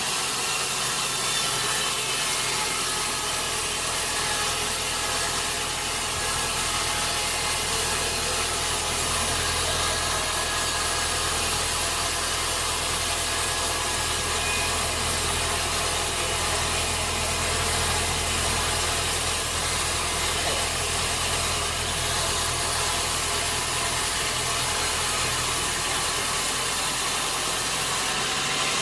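Sawmill machinery running steadily: a constant low motor hum under a broad mechanical hiss.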